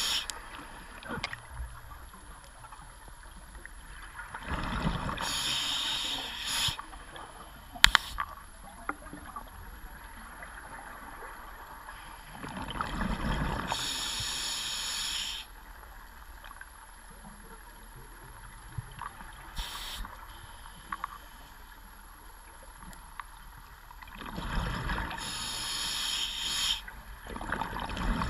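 Scuba diver breathing underwater on an open-circuit regulator: three slow breaths, each a hiss and bubbling rush lasting two to three seconds, with quieter stretches between. A single sharp click about eight seconds in.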